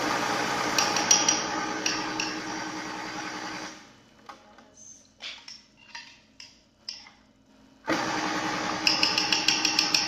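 Electric countertop blender running on a thick creamy mixture of crushed Oreos, condensed milk and cream. It runs for nearly four seconds and stops, a few light knocks follow in the pause, then it starts again about eight seconds in, with a quick run of clicks near the end.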